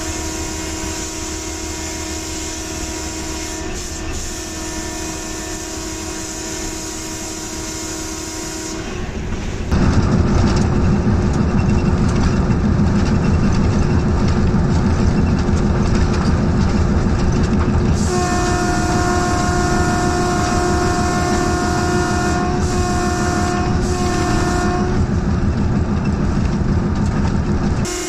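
Hitachi HBU-20 diesel-electric locomotive under way: a steady engine hum at first, then about ten seconds in it turns much louder, with heavy engine and wheel-on-rail noise. From about eighteen seconds the locomotive's horn sounds for about seven seconds, with two short breaks near the end of the blast.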